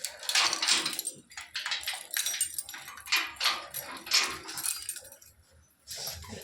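Dog whining in a run of short bursts over about five seconds, dying away near the end.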